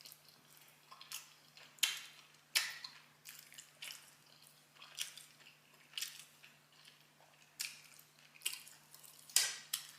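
A person chewing food close to the microphone, with short wet mouth sounds at irregular intervals of about one a second.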